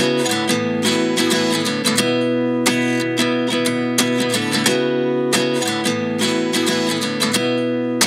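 Instrumental song opening on acoustic guitar: chords picked and strummed in a steady rhythm, with no singing.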